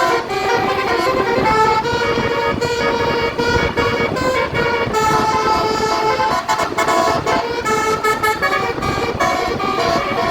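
Bus basuri (telolet) multi-tone musical air horn playing a tune of quick-changing notes over a steady low noise.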